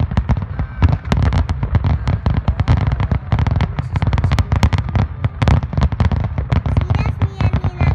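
Aerial fireworks shells bursting in rapid succession: a dense, unbroken barrage of sharp bangs with deep booming rumble.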